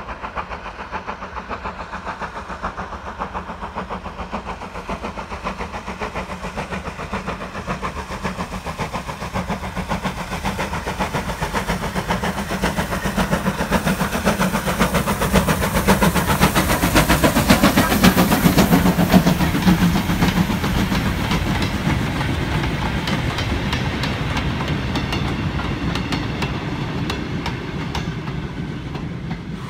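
Steam tank locomotive hauling a goods train past, its exhaust beating rapidly as it works. The sound builds to a peak about halfway through as the engine draws level, then fades as it moves away.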